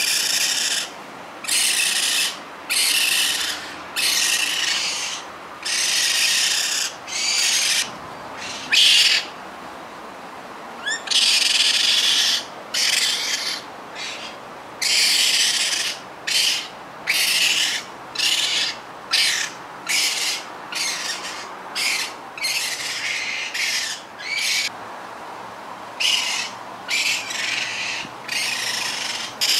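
Baby raccoon calling over and over with breathy, hiss-like cries, each under a second, about one a second, with a short break around a third of the way through.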